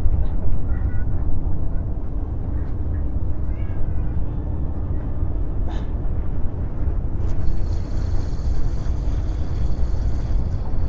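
Steady low rumble of wind on the microphone, with a cat meowing faintly a few times, near the start and again about three and a half seconds in.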